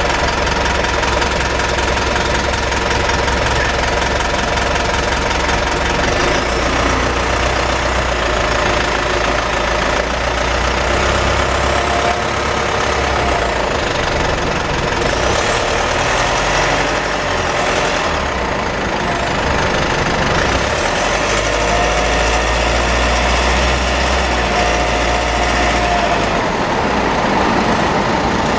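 Cabin noise of a Mitsubishi with a 4N15 diesel engine, running steadily with a high-pitched 'EEeeeEEEeee' whine over it that rises and falls in places. The owner later found the rear differential overfilled, the front differential oil burnt black and the ATF about a litre short, and blames lasting drivetrain damage for the whine.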